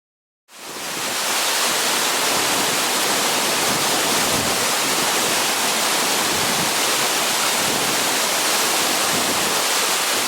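Waterfall: a steady rush of falling water that fades in from silence about half a second in.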